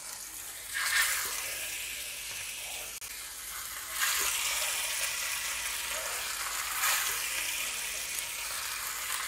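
Thin marinated chicken pieces sizzling as they shallow-fry in a little oil on a hot iron tawa. The sizzle swells each time another piece is laid on the pan, about a second in, at four seconds and again near seven seconds, and grows steadily louder as more pieces fry.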